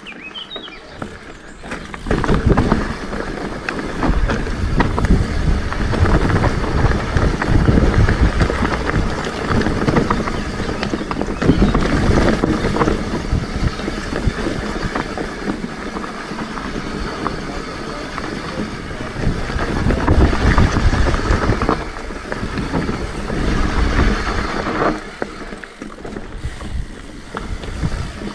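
Mountain bike descending a dirt and gravel trail at speed: tyres rumbling and crunching over the ground, with knocks and rattles over bumps and wind buffeting the microphone. It goes quieter briefly just after the start and again near the end.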